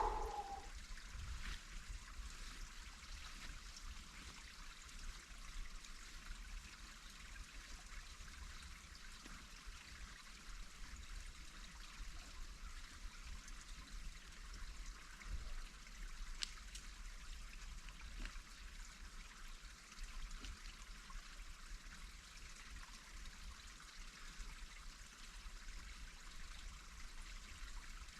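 Faint, steady rushing of flowing water, with a few light clicks.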